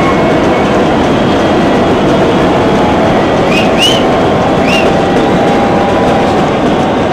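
Large stadium crowd making a loud, steady din, with a few short shrill whistles near the middle.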